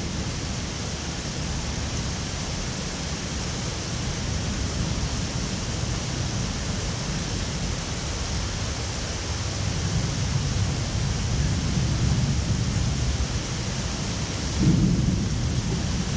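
Steady hiss of heavy rain under low rolling thunder. The rumble swells about two-thirds of the way through, with a sudden louder peal near the end.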